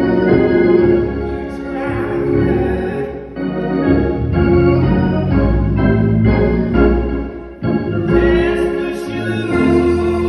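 Church organ playing sustained chords that change every second or so, with two brief breaks between phrases.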